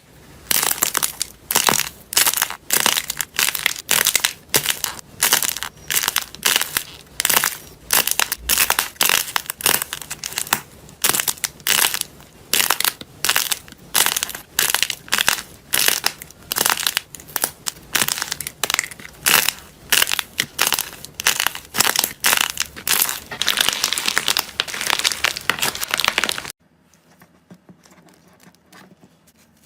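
Slime squeezed and kneaded by hand, crackling and crunching in repeated bursts about twice a second, stopping suddenly near the end.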